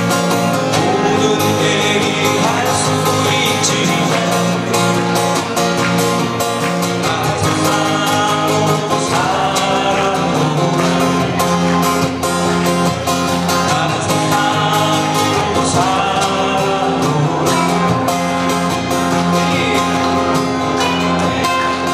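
An ensemble of five acoustic guitars playing a song together, steadily and without a break.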